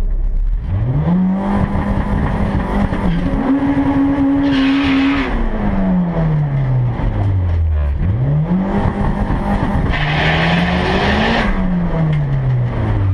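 Turbocharged Honda Civic EG6 four-cylinder engine, heard from inside the cabin, revved up and held high twice, each time falling back to a low idle. Tyres spin and squeal near the top of each rev, typical of a burnout before a drag run.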